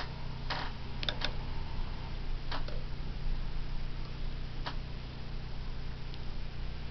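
A handful of sharp, scattered clicks and taps from hands handling thread and fabric at a sewing machine's needle and darning foot, over a steady low hum. The machine is not stitching.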